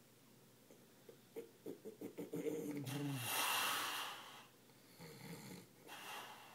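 A sleeping man snoring: a rattling, fluttering snore on the in-breath, then a loud hissing breath out, with another, weaker breath near the end.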